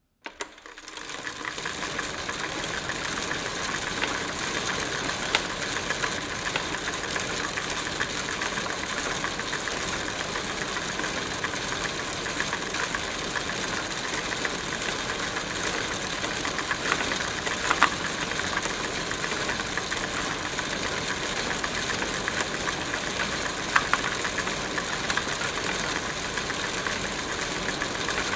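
Bicycle being ridden: a steady mechanical whirring and rattling, with a few sharper clicks now and then. It rises from silence within the first second or two.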